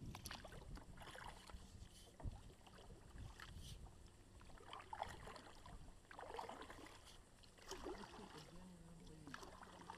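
Kayak paddles dipping and pulling through the water: soft, faint splashing and dripping from the blades, with a couple of short sharp knocks.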